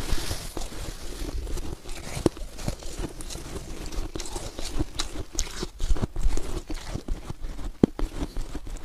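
Close-up crunching of fresh soft snow: a run of irregular sharp crackles, with a few louder ones about two, six and eight seconds in.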